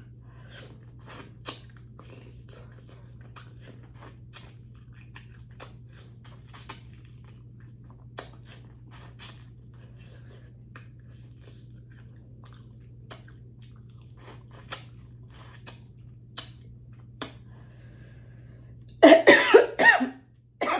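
Close-miked chewing with small faint mouth clicks, then about nineteen seconds in a short burst of loud coughing, from a piece of corn that went down the wrong way.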